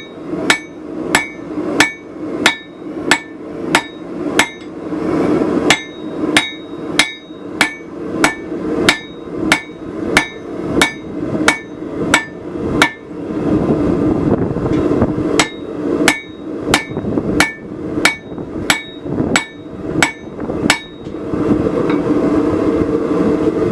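Hammer blows on hot steel over an anvil, at about two a second with a ringing tone on each strike, setting the forge welds of a San Mai billet of wrought iron and high-carbon steel. There is a short break in the middle, and the blows stop near the end. A steady roar runs underneath and is plainest in the pauses.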